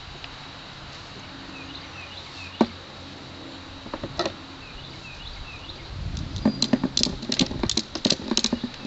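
Ratchet strap being cranked tight: a couple of single clicks, then from about six seconds in a quick run of ratchet clicks, about four a second.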